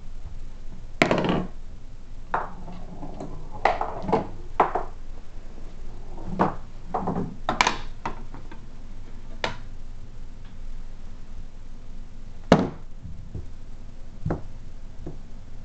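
A cat batting a cue ball around a small wooden pool table: about a dozen irregular wooden knocks and thuds of the ball and paws against the table and its rails, the sharpest about a second in and another late on.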